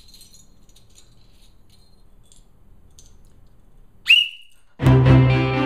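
Small metal bells tinkling faintly as they are handled. About four seconds in comes one short blast on a small metal whistle: its pitch slides up, then holds briefly. Loud music starts just under a second later.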